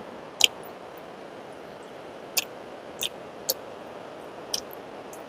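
Eating sounds: about five short, sharp mouth clicks and smacks spaced irregularly over a faint steady hiss, the loudest about half a second in.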